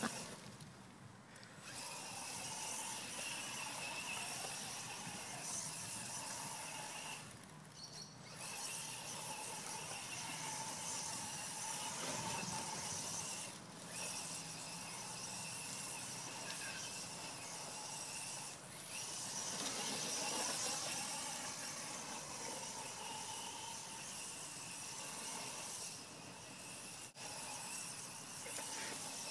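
Hobbyking Trooper radio-controlled short course truck driving, a steady motor whine and hiss that dies away briefly about five times.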